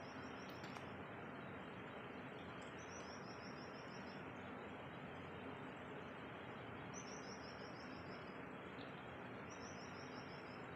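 A small songbird singing short, high phrases of about eight quick notes each, repeated every few seconds, over a steady outdoor hiss.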